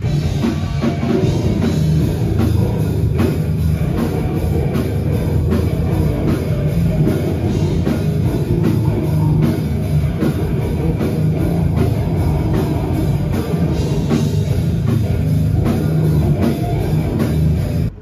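Live heavy metal band playing loud, with a fast, steady drum beat under distorted guitars. It breaks off abruptly at the very end.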